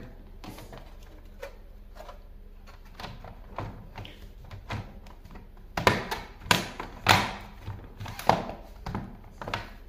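Scattered plastic clicks and knocks from hands working on a laptop during reassembly after a RAM swap. They are sparse and light at first, then louder and more frequent for the last few seconds.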